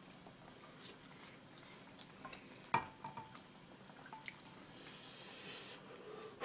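Soft clinks of chopsticks against a ceramic bowl as ramen noodles are moved from the pan into the bowl, one brief ringing clink about three seconds in. A soft breathy hiss comes near the end.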